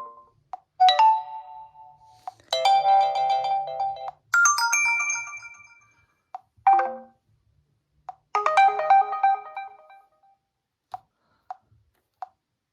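Realme C11 (2021) smartphone notification sounds played one after another: five short chimes of layered bell-like tones, each fading out. A few faint ticks follow near the end.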